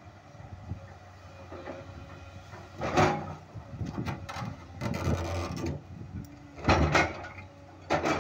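Hydraulic excavator's diesel engine running steadily while its bucket pushes and scrapes against boulders, with loud grinding crashes of rock on steel about three seconds in and twice near the end.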